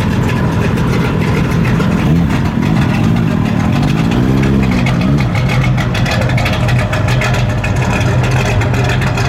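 A V8 muscle car engine running at idle, with two short throttle blips a couple of seconds in: the pitch rises and falls each time before settling back to a steady idle.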